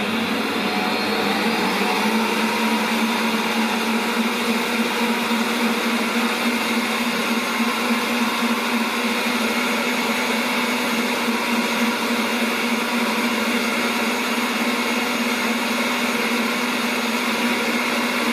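Kenwood Cooking Chef Gourmet stand mixer speeding up to high over the first couple of seconds, then running with a steady whir as it beats egg whites for meringue.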